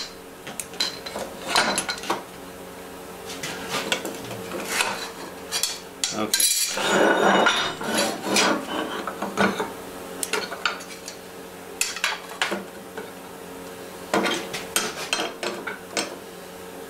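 Steel workpieces and carbon blocks being handled and set down on a steel welding table: repeated clinks and clanks of metal on metal, with a longer scraping noise of over a second about six and a half seconds in.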